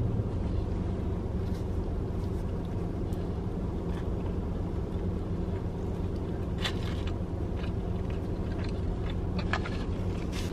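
Steady low hum of a car idling, heard from inside the cabin, with a few faint mouth sounds of someone biting and chewing a burger.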